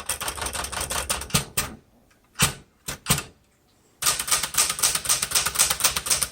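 Typing on a 1972 Smith Corona Classic 12 manual typewriter: a fast run of keystrokes and type-bar strikes, then a pause of about two seconds broken by two single clacks, then another fast run of typing.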